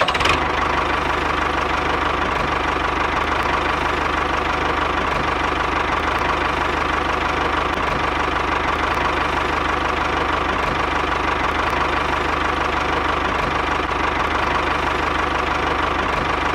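Tractor engine running steadily at an even speed, with no change in pace.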